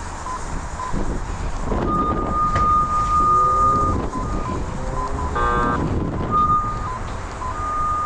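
A Radiodetection RD8200 cable locator receiver beeping. Short regular pips alternate with longer, slightly higher steady tones as it picks up signal, a weak, uncertain tone from bonded old and new power cables. A brief buzzy tone sounds about five and a half seconds in.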